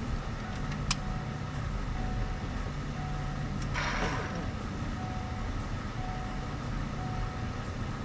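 Ford F-350 diesel engine being cranked over by the starter without firing, a steady low churning as the high-pressure oil system primes. There is a brief noisy burst about four seconds in.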